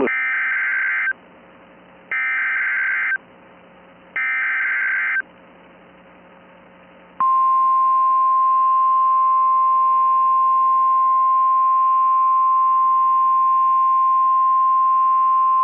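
NOAA Weather Radio alert signal: three short bursts of warbling SAME data tones about a second apart, then, about seven seconds in, the long steady single-pitched warning alarm tone that announces a new warning.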